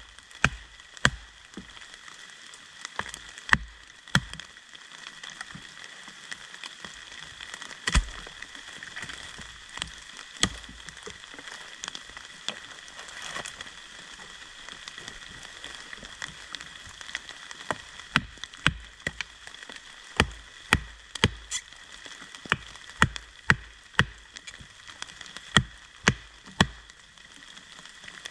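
Wooden baton striking the spine of an ESEE Laser Strike fixed-blade knife to drive it through a piece of dry, hard madrone: sharp knocks in irregular runs, with a lull in the middle and a faster run near the end.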